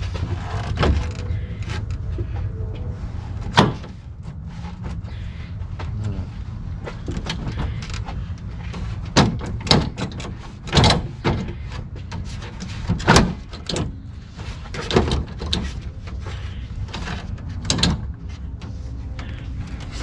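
Plastic front grille of a Toyota Tundra being yanked forward to pop its lower clips loose, giving a string of irregular sharp knocks, clicks and rattles over a steady low hum.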